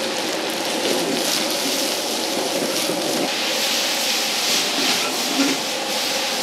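Sliced green chili peppers sizzling in a wok over a high gas flame, with a steady frying hiss. A metal ladle stirs and scrapes them against the pan.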